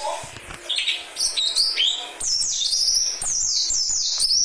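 A young songbird, a dakun, singing a fast run of high chirps and quick downward-sliding whistles, packed close together: the 'tembakan' burst of song that bird keepers prize.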